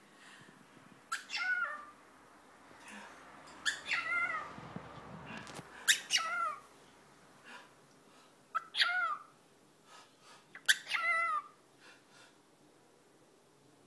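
A cockatiel imitating a sneeze five times, about every two to three seconds. Each imitation is a sharp, sudden onset followed by a short squeaky call that bends down in pitch.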